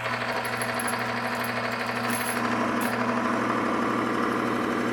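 Falex lubricant tester running under load: its electric motor hums steadily while the test bearing turns against its race with a fast, even mechanical chatter, the contact pressed by a lever arm to smoke off a freshly applied drop of gun lubricant. The tone of the chatter shifts about two seconds in.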